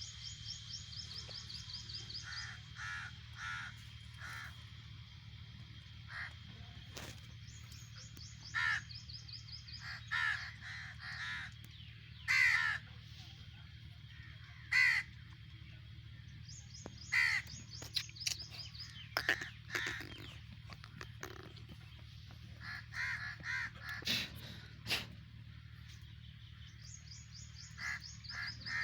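Birds calling: short harsh calls repeated irregularly, with fast high trills of chirping near the start, in the middle and near the end, over a steady low hum.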